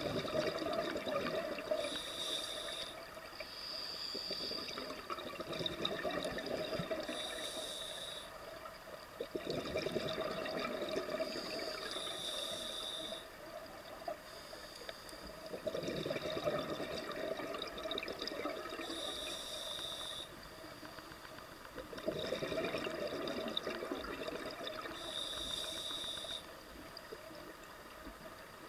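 Scuba diver breathing through a regulator underwater: about five breaths, each a bubbling exhalation lasting a few seconds followed by a short hiss of inhalation.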